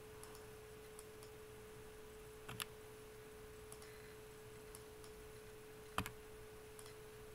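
A faint steady electrical hum on one held tone, with a few computer mouse clicks, the two loudest about two and a half and six seconds in.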